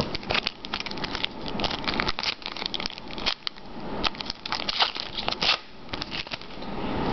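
Crinkling and crackling of a trading-card pack wrapper as it is handled and torn open, with cards being handled; a rapid, irregular string of sharp crackles.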